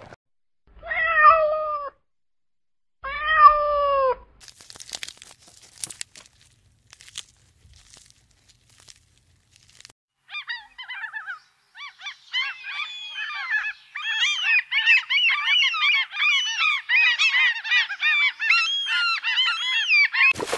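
An alpaca gives two loud calls, each falling in pitch. From about ten seconds in, a flock of gulls calls over and over, many voices overlapping.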